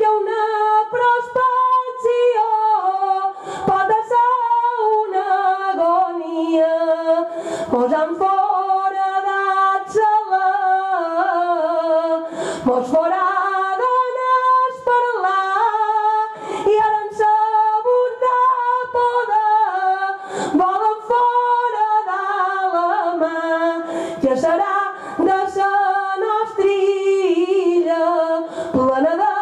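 A woman singing a Mallorcan glosa unaccompanied: one voice holding long notes in a melody that steps up and down, in phrases broken by short breaths every few seconds.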